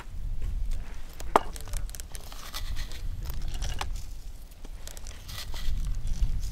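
Kitchen handling sounds: a metal pepper shaker tin is shaken over a wooden bowl and set down on a wooden table, with small clicks and rustles and one sharper click about a second and a half in. A steady low rumble runs underneath.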